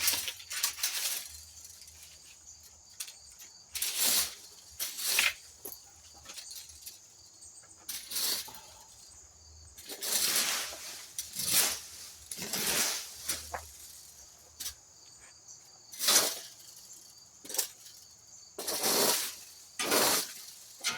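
Rake strokes through dry leaves: about a dozen irregular scraping swishes, with crickets chirping steadily in the background.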